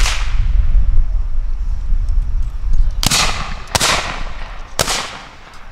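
Black-powder Civil War muskets firing four shots: one, then after a pause of about three seconds a quick run of three, each shot trailing off in an echo.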